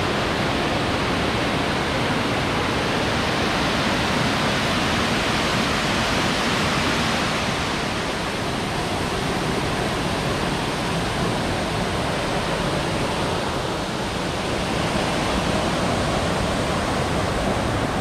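Steady rush of the Nauyaca waterfall, water falling and crashing into its pool in a dense, even hiss with no let-up.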